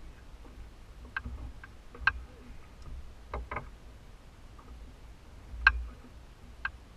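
Irregular sharp clicks and ticks, about seven over several seconds, the loudest about two thirds of the way in with a low bump under it, over a faint low rumble.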